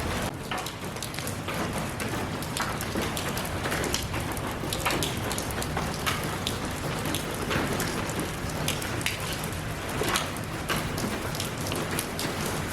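Steady rainfall: a constant hiss with many individual drops pattering and splashing on a surface.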